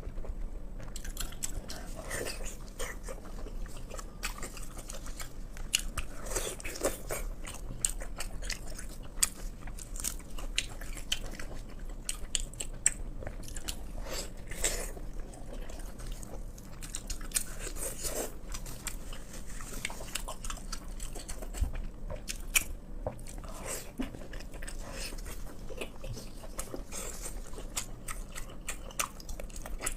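A person chewing and biting pork close to the microphone: irregular wet, crunchy mouth clicks and smacks.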